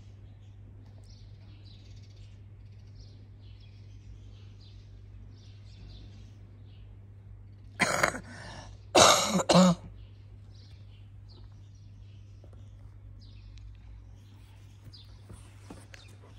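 A person coughing twice, loud and close, about halfway through, over faint bird chirping.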